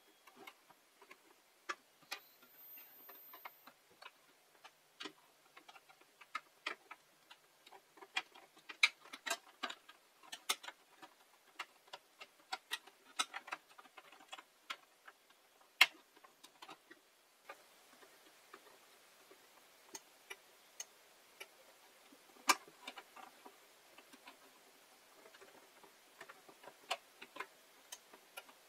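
Irregular light clicks and taps of small parts and tools being handled, several a second at the busiest, with a few louder single clicks now and then.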